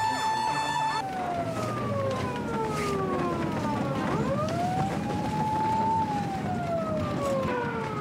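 Fire engine siren. A steady tone breaks off about a second in, then a slow wail falls, rises again and falls again.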